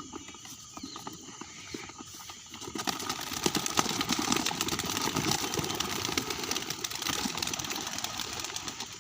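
Wings of a flock of released birds flapping, many quick overlapping beats that swell about three seconds in and stay loud.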